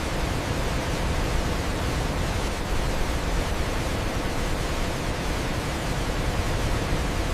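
Waterfall: a steady, even roar of falling water.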